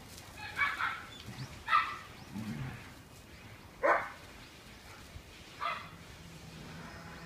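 Dogs play-fighting: four short, high-pitched barks spread over several seconds, with a lower, rougher sound about two and a half seconds in.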